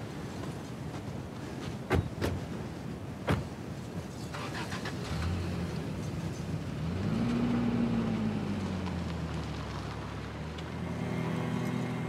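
Isuzu pickup's doors slamming shut, a sharp knock about two seconds in and another just over three seconds in, over steady wind noise. From about five seconds a low drone comes in, with a tone that rises and then slowly sinks.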